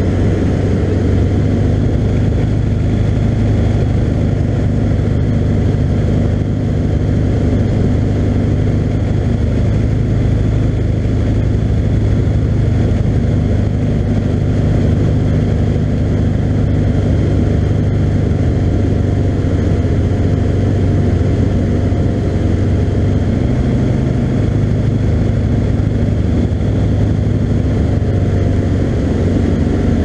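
Skyranger Classic microlight's engine and propeller droning steadily in flight, heard from inside the cockpit.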